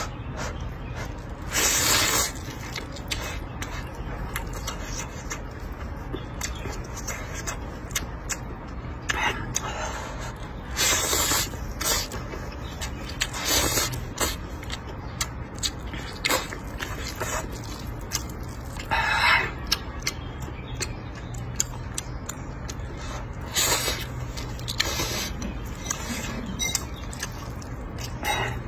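A person slurping wide wheat noodles: several loud, short slurps a few seconds apart.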